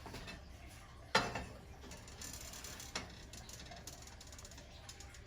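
Handling sounds at the stove: a sharp knock about a second in, then scattered light clicks and ticks.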